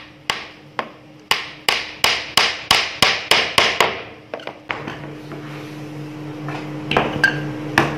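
A hammer striking a nail into a plywood board: about a dozen sharp blows in quick succession, speeding up, then a few lighter taps. A low steady hum sets in about halfway through.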